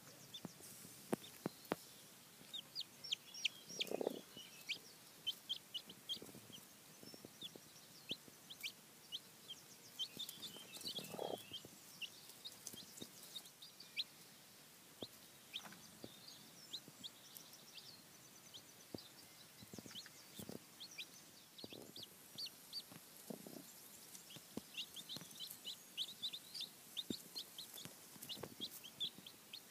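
Newly hatched chicks peeping in many short, high calls, busiest near the start and near the end. A broody hen gives a few low clucks among them, the clearest about four seconds in and again about eleven seconds in.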